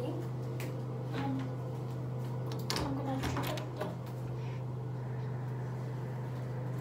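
Bathroom ceiling exhaust fan humming steadily, with scattered clicks and knocks of things being handled, the loudest cluster about three seconds in.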